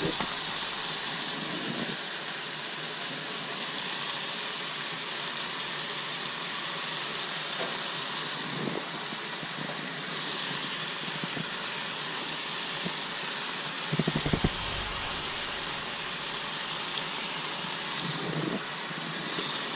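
King mackerel fillets sizzling steadily in hot olive oil and melting butter in a cast-iron skillet. A few quick knocks come about two-thirds of the way in.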